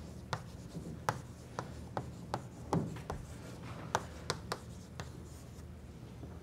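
Chalk writing on a blackboard: irregular sharp taps and short scrapes as letters are written, over a steady low hum.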